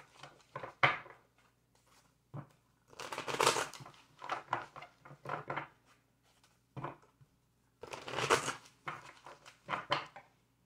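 A deck of tarot cards being shuffled by hand: irregular short swishing bursts with brief pauses between them.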